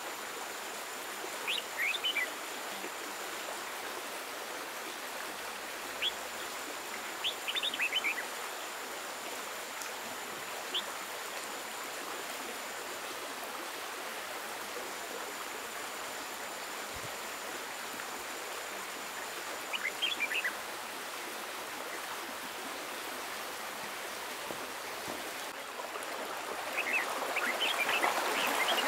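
Stream water running steadily, with a few short bird chirps now and then; the water grows louder near the end.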